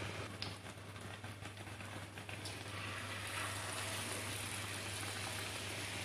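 Besan-battered potato slices (aloo pakora) sizzling steadily in hot oil in a frying pan. The sizzle grows a little louder and hissier a few seconds in, as a second battered slice goes into the oil.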